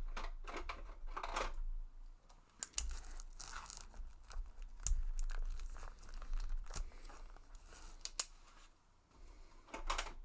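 Plastic wrapper of a Digimon card game booster pack being crinkled and picked at with repeated tries to tear it open, in irregular crackles, sharp ticks and short tearing scrapes. The wrapper is stubborn and won't open.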